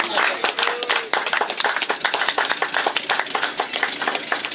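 Many people clapping: dense, irregular applause, with a brief voice call about a second in.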